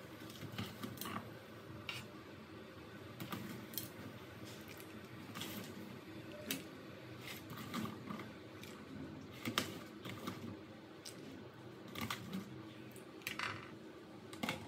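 Cooking at a clay pot: water bubbling, then a metal ladle stirring chunks of sweet potato in the water, with many scattered light clicks and knocks, the sharpest about two-thirds of the way in.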